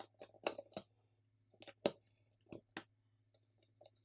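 Small scattered clicks and taps of the video doorbell's plastic housing and internal parts being handled and fitted back together, irregular, with the sharpest ones about half a second, two seconds and nearly three seconds in.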